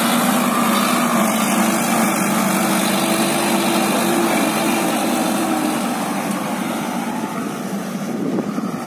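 Sonalika DI 60 Sikander tractor's four-cylinder diesel engine running steadily as it pulls a fully loaded trolley of mud past and away, growing a little fainter near the end.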